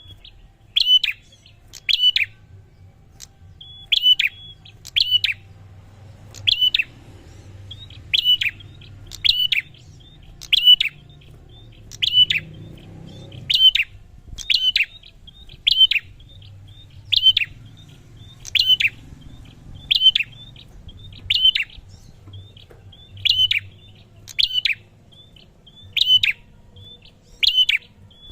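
Prinia (prenjak) calling over and over: a sharp, high note repeated about every second and a half, with softer short notes in between.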